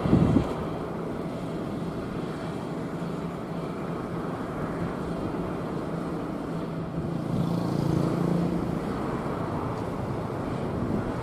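An engine running steadily outdoors, its low hum swelling about seven to nine seconds in and then settling back.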